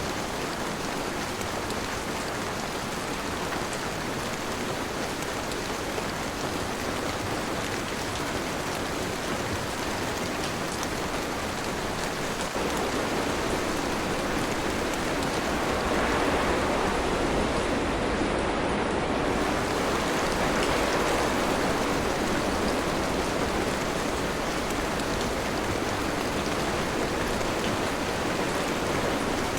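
Steady rain falling, a continuous hiss of drops. It grows louder about halfway through, with a couple of heavier swells.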